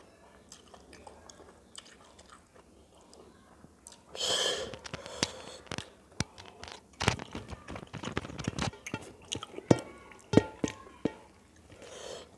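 Close-miked eating by hand: faint clicks of fingers mixing rice on a steel plate, a short noisy rush about four seconds in as a handful goes to the mouth, then loud wet chewing and crunching with many sharp clicks.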